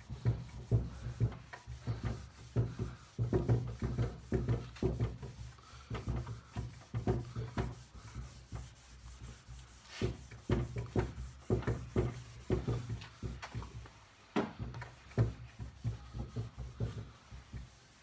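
A pad rubbing wax into a pine tabletop by hand, in quick back-and-forth scuffing strokes of about three a second, easing off briefly a couple of times.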